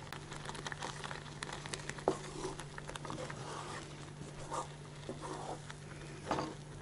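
Wooden spatula stirring thick spinach gravy with paneer in a frying pan: faint soft scrapes and wet clicks, a few slightly louder ones, over a steady low hum.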